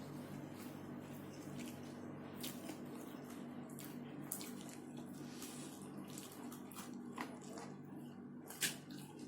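Wet chewing and mouth smacks from someone eating shrimp and stink beans, with a scatter of sharp clicks, the loudest near the end. A steady low hum runs underneath.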